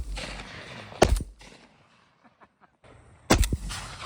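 Shotguns firing at doves: one blast about a second in and another about three seconds in, each trailing off in a rolling echo.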